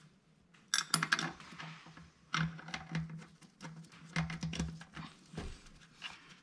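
Metal screws and a steel bracket being fitted by hand and with a screwdriver: an irregular run of light clicks and taps that starts about a second in and dies away near the end.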